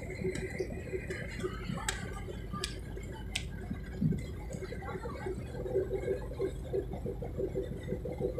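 Steady low rumble and hum of a passenger ferry's engines, heard on the open deck, with a few sharp clicks in the first half.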